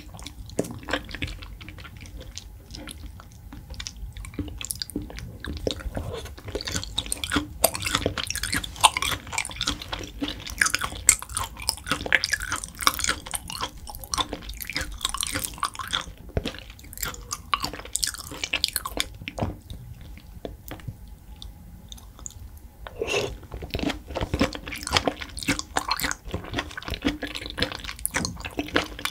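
Close-miked wet chewing of raw beef and sea urchin roe: soft, squishy mouth sounds with many small, irregular lip and tongue clicks. There is a brief lull about three-quarters of the way through before the chewing picks up again.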